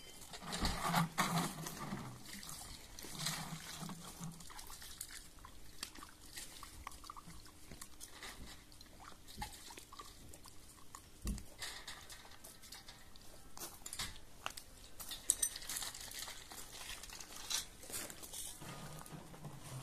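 Metal dishes and a pot being washed by hand: scattered clinks and scrapes with water splashing and pouring.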